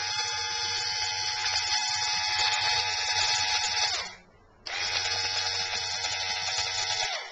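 BMW E38 electric in-tank fuel pump, hot-wired to a battery charger, running with a steady whine for about four seconds, then winding down as the power is broken, and running again for a couple of seconds before stopping near the end. It runs smoothly upright, a sign that the pump is working and was not the car's fault.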